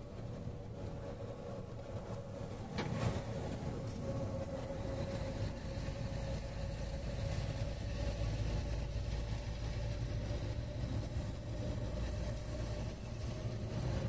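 Truck running at road speed, heard from inside the cab: a steady engine and road rumble with a constant whine above it. One brief knock about three seconds in.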